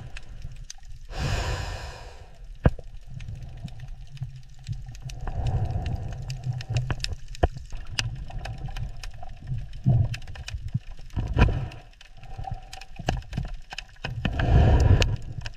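Underwater-style sound-effect ambience: a steady low rumble with scattered sharp clicks and crackles, and two whooshing swells, one about a second in and one near the end.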